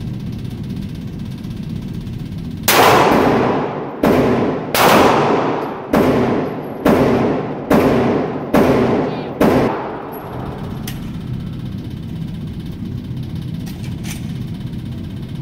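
A handgun fired eight times at an indoor range, the shots roughly a second apart, each ringing briefly off the range walls. A steady low hum runs underneath.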